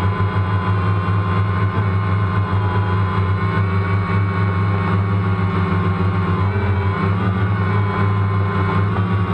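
DJI Phantom quadcopter's electric motors and propellers, heard through its onboard camera in flight: a steady loud drone with a whine whose pitch wavers slightly as the motors adjust, dipping and rising again about seven seconds in.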